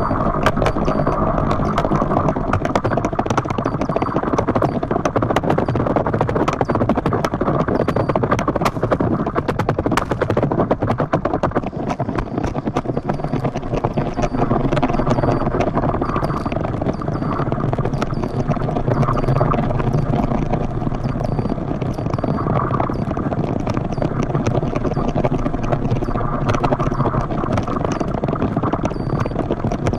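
Speed kiteboard running fast over choppy water: a continuous rattling chatter of rapid small slaps and scrapes from the board, with rushing noise. A faint high whistle comes and goes throughout.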